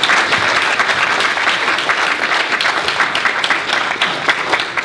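Audience applauding, many hands clapping, thinning out slightly near the end.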